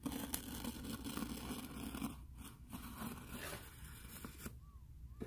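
Hobby knife scraping and slicing along packing tape on a cardboard box seam, with heavy breathing close to the microphone. It dies down about four and a half seconds in.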